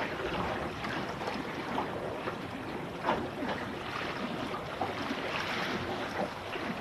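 Water rushing and slapping against the hull of a Finn dinghy under sail, with irregular splashes over a steady wash, and wind.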